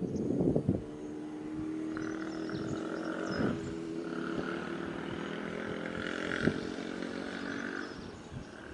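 An E657 series electric limited express train pulling away slowly, its traction motors giving a whine of several tones that rise gradually as it gathers speed, with a higher hum above them. A brief rush of noise comes at the start, and there are two sharp clicks, about a third of the way in and about three quarters in.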